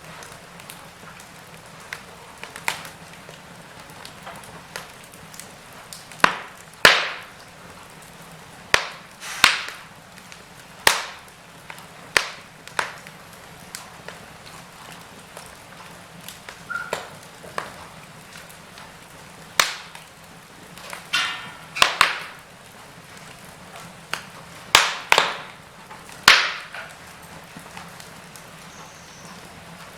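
Wood fire crackling in a fireplace: irregular sharp pops and snaps, a dozen or so louder ones with short tails, over a soft steady hiss of the burning fire.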